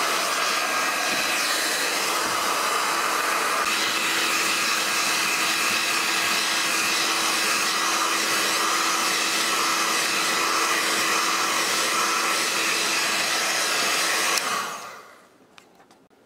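DeWalt heat gun running steadily, blowing hot air onto beech slats that are clamped around a form, to soften them for bending without steam: an even hiss of air with a faint steady hum. It stops and dies away near the end.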